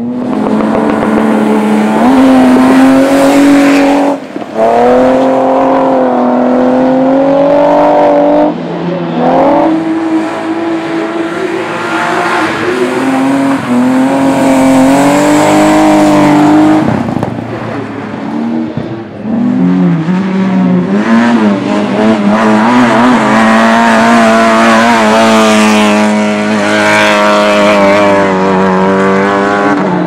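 BMW 3 Series cars driven hard on a dirt track, their engines held at high revs and rising and falling in pitch as the drivers work the throttle. There is a brief break about four seconds in and another near eight and a half seconds.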